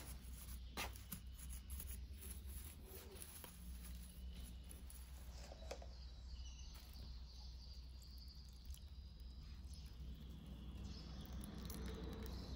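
Faint background with a steady low hum, a few soft clicks and faint high chirps in the second half.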